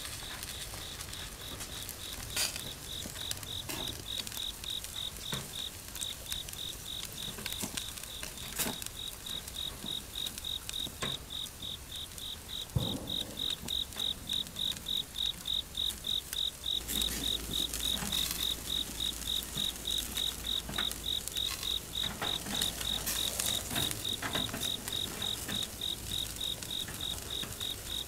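Crickets chirping: a high-pitched, even, rapid pulse that keeps going without a break, with scattered sharp crackles and pops over it.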